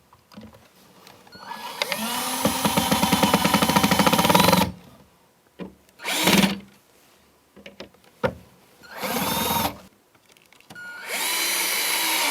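Power drill driving a screw into the cabinet's male-and-female panel connector, in four runs: one long run that spins up to speed, two short bursts, then another run near the end.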